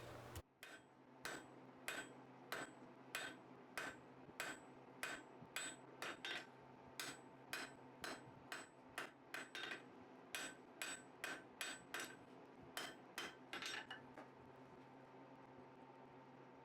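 Hammer blows on hot 3/8-inch mild steel square bar, forging it on the anvil. The strikes come at a steady pace of about two a second, each with a faint ring, and stop about two seconds before the end.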